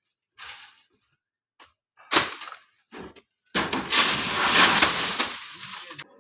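Cut parts of a coconut tree crashing and breaking as they come down: a few short cracks, then a long, loud crash lasting about two and a half seconds that dies away near the end.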